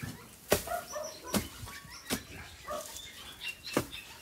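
A spade chopping into soil and bamboo roots while a bamboo clump is dug out: about four sharp strikes, roughly a second apart.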